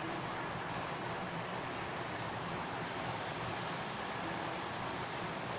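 Pancake batter frying in hot oil in a pan: a steady sizzle, with a brighter, higher hiss coming in about halfway through.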